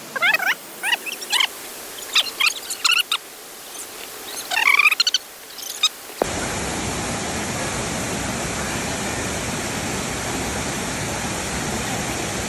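Forest ambience with a string of short chirping animal calls, then an abrupt cut about halfway through to the steady rush of a waterfall.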